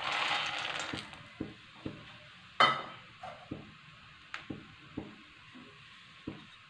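Makhana (fox nuts) poured into a steel kadhai with a little oil, making a rattling hiss that fades over about a second and a half. After that comes a faint sizzle with scattered clicks and pops, one louder about two and a half seconds in, as the makhana begin to roast.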